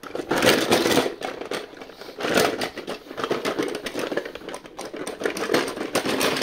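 Diecast metal toy cars clattering against one another and the sides of a plastic tub as they are stirred around: a dense, continuous run of clicks and rattles.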